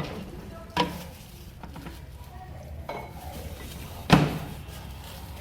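Dishware being handled: a few knocks and clinks of a bowl against hard surfaces, the loudest about four seconds in, over a low steady hum.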